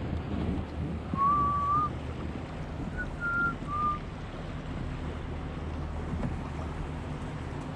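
Wind on the microphone over a low steady rumble from a passing motorboat, with a few short whistled notes in the first four seconds.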